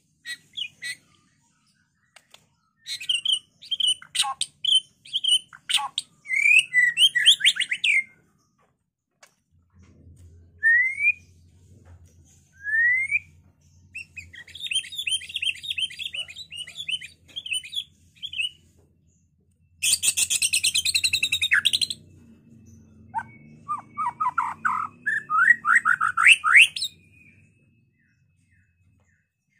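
Male white-rumped shama (murai batu) in full song. Phrases of rising whistles and rapid trills are broken by short pauses, with a harsh rattling burst about two-thirds of the way through.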